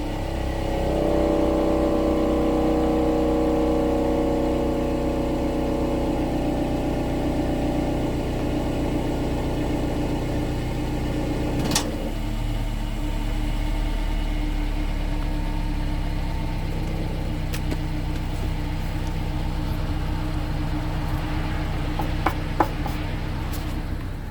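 Exhaust of a 2016 Subaru Outback's four-cylinder boxer engine at a steady low idle, heard from under the car, with a metallic rattle from inside the muffler, a sign of a failed weld or loose baffle inside it. A sharp click a little before halfway, and a few more clicks near the end.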